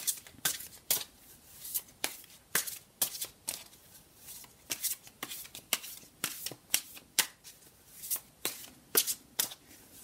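A deck of tarot cards shuffled by hand overhand, the packets of cards slapping together in short crisp strokes, about two or three a second.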